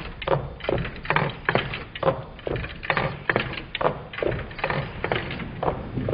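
Twin-cylinder Meccano Stirling engine running, its displacers knocking as they land at each end of their travel: a steady rhythmic clatter of about two and a half knocks a second.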